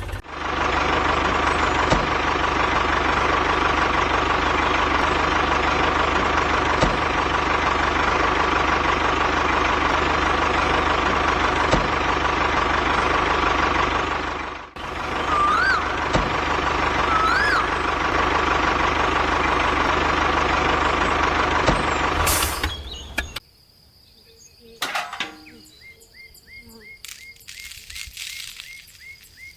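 A small motor running steadily with a constant whine, briefly interrupted about halfway, then stopping well before the end, leaving faint scattered ticks. Two short rising-and-falling whistle-like tones sound just after the interruption.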